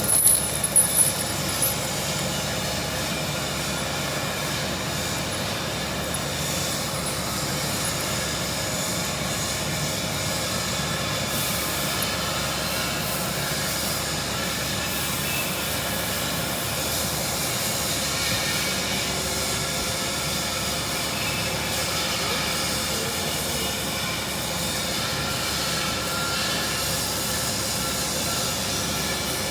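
Vertical injection molding machine running through a molding cycle: a steady mechanical hum with a hiss, with a few brief louder sounds right at the start.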